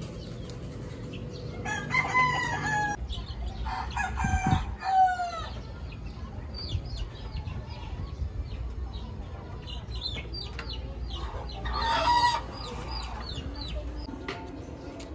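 Rooster crowing three times: two crows close together in the first few seconds and a third near the end, each a loud pitched call that falls off at the close.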